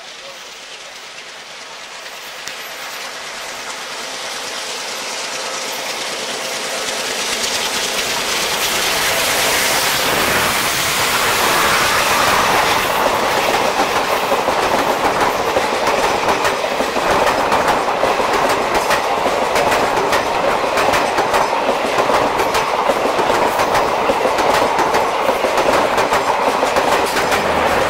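An express train passing on the adjacent track. The noise of the approaching diesel-hauled train builds over about the first ten seconds, then its coaches run by close alongside with a steady loud rush and a rapid clatter of wheels.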